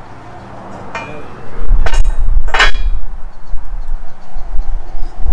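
Steel clanking as a fabricated steel cross member and its bracket are fitted onto a steel engine cradle: a light knock about a second in, then two loud ringing clanks about half a second apart. A loud low rumble starts about a second and a half in and carries on.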